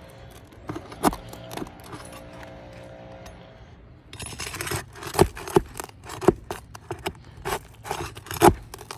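Hand tools scraping and knocking against roof shingles during a shingle repair: scattered sharp taps at first, then a busier run of scrapes and knocks from about four seconds in.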